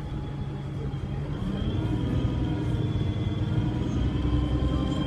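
Alexander Dennis Enviro300 bus's diesel engine running under load, with a loud turbo whistle held as a steady high tone over the engine note. About a second and a half in, the engine note shifts and gets a little louder.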